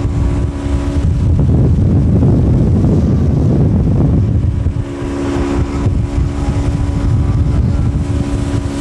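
Tow boat's motor running steadily at towing speed while pulling a slalom water-skier, with wind rushing over the microphone.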